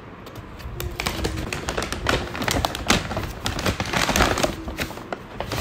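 Brown paper takeaway bag rustling and crinkling as it is cut open with scissors and pulled apart by hand, with dense irregular crackles from about a second in.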